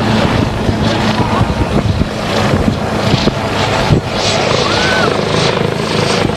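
Search-and-rescue helicopter hovering low: a steady low drone of engine and rotor under a rushing noise that swells and fades about every half second.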